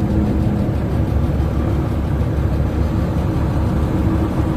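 Steady low rumble of heavy vehicle engine and road noise, with a faint wavering hum over it.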